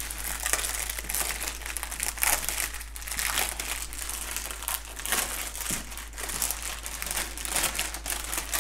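Clear plastic wrap crinkling and crackling in irregular bursts as hands pull it open and peel it off a strip of bagged crystal diamond-painting drills.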